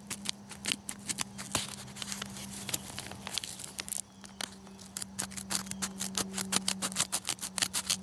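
Small multitool scissors of a Leatherman Knifeless Rebar snipping through paper folded eight layers thick: a run of short, crisp snips that come faster and closer together in the second half.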